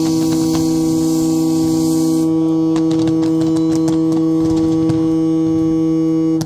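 Boat horns sounding a loud, steady held chord, one note dropping out about two seconds in, with faint fireworks pops beneath; the horns cut off at the end.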